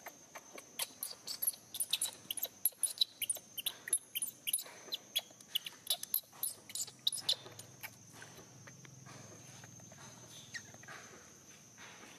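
Newborn macaque crying: a rapid run of short, high-pitched squeals, several a second, that thins out to only a few after about seven seconds.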